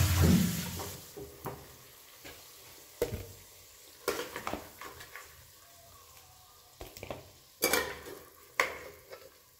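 Cooking in a pan: a hiss of sizzling at the start that fades within about a second, then a utensil clinking and knocking against the pan every second or so while the food is stirred.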